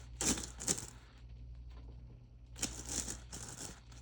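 Plastic storage bags rustling and crinkling as they are handled, in two short spells: just after the start and again past the middle.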